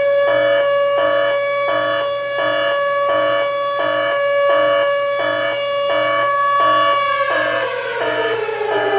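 Alarm siren sound effect: a steady siren tone over a rapid pulsing about three times a second. About seven seconds in, the siren's pitch starts sliding down as it winds down.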